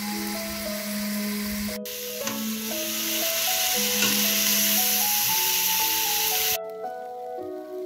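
Diced bacon and sausage sizzling in their own rendered fat in a stainless steel pot, with chopped onion and mushrooms added, under background music with a steady melody. The sizzle grows louder about two seconds in and cuts off suddenly near the end.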